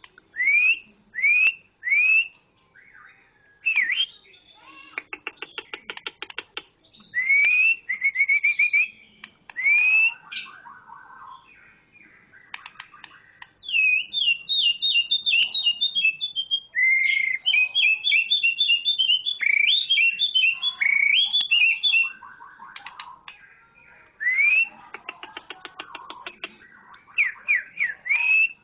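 A bird calling: repeated short rising whistles, fast runs of quick whistled notes, and harsh rattling calls between them.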